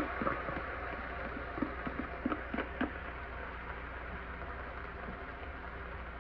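Pan of sautéed vegetables sizzling with a steady hiss as pink salmon is scraped into it from a bowl, with a spoon clicking against the bowl at the start and a quick run of taps and knocks about two to three seconds in.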